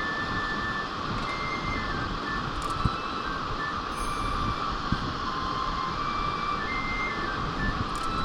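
Steady rushing of a mountain stream, with short high-pitched notes scattered over it and a couple of faint clicks.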